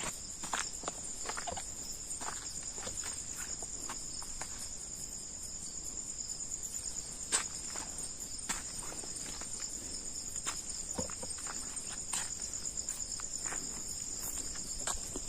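Night chorus of crickets: a steady, high-pitched chirring, with scattered light clicks and taps over it, the sharpest about seven seconds in.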